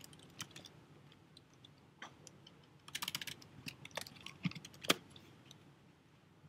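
Typing on a computer keyboard: scattered keystroke clicks, with a quick run of keys about three seconds in and a louder single keystroke just before five seconds.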